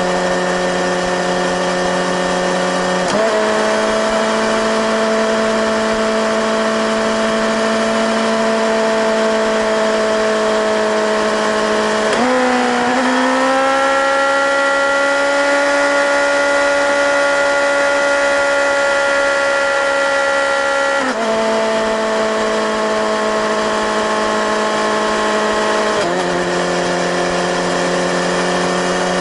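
Suzuki GSX-S1000GT inline-four engine and exhaust under steady cruising at about 100 km/h, with wind noise. The engine note steps up in pitch twice as lower gears are selected, about three seconds in and again about twelve seconds in with a short rising glide. It then steps back down twice near twenty-one and twenty-six seconds as higher gears are selected, the revs changing with gear at constant road speed.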